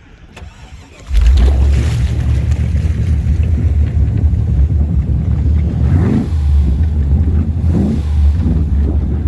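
Ski boat's inboard engine running loudly, cutting in suddenly about a second in with a deep steady drone, and revving up briefly twice, around six and eight seconds in.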